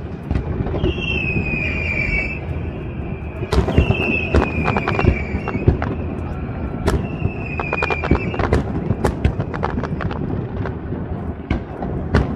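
Fireworks display going off: repeated bangs and crackles of bursting shells over a steady low rumble. Through it come four high whistles, each about a second long, sliding slightly down in pitch.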